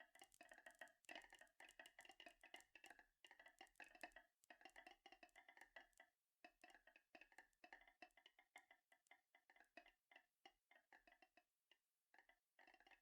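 Faint, irregular clicking and rattling of marbles rolling down a marble-run track and knocking against it and each other, each click ringing briefly at the same few pitches.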